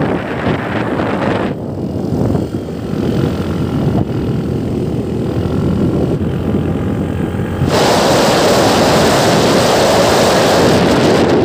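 Motorcycle engine running during a ride, under wind rushing over the microphone; about eight seconds in, the wind noise abruptly becomes much louder.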